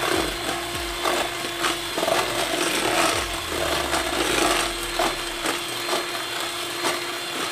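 Electric mixer whisking egg yolks and sugar in a bowl: a steady motor hum with the beaters scraping and rattling against the bowl, the mix turning fluffy as the sugar dissolves.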